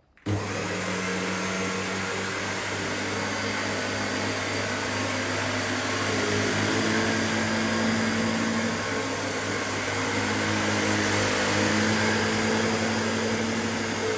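Sebo-made commercial upright vacuum cleaner running over a floor: a steady motor hum with a whirring hiss, starting abruptly, with a higher tone that shifts in pitch a few times.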